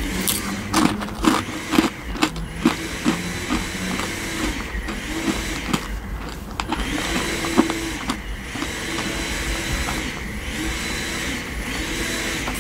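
Close-miked chewing of soft marshmallow candy, with wet, sticky mouth sounds. A quick run of clicks comes in the first few seconds, then steady chewing noise.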